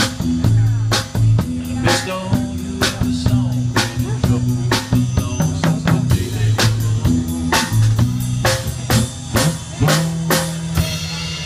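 Live instrumental music: an acoustic bass guitar playing held low notes under a steady drum beat of sharp, regular hits.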